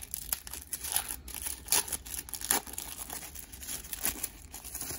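Clear plastic wrapper of a trading-card pack being torn open and crinkled by hand: a run of sharp crackles, loudest near the middle.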